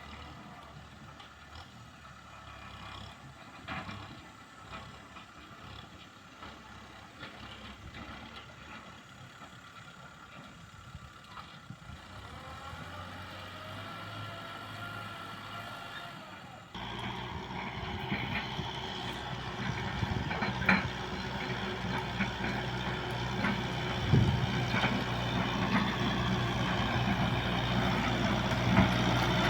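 Kubota M6040S tractor's diesel engine running while ploughing a rice field. It is faint at first, with its pitch rising about twelve seconds in, then suddenly much louder about seventeen seconds in, and it keeps growing louder toward the end.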